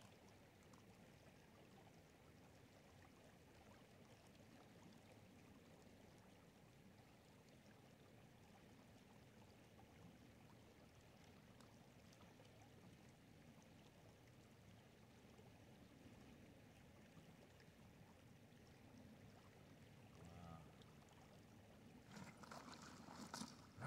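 Faint, steady water sound of a shallow river, with water swishing in a plastic gold pan being worked at the water's edge. A few brief, louder sounds come near the end.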